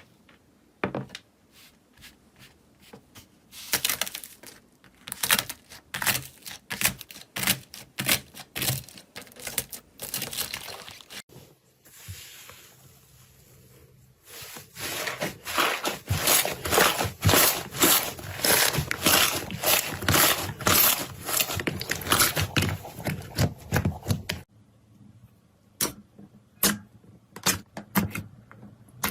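Slime being squeezed and pressed by hand, giving sharp clicks and pops: a steady string of clicks at first, then after a pause a denser, louder run of crackling for about ten seconds, ending abruptly, then a few scattered clicks.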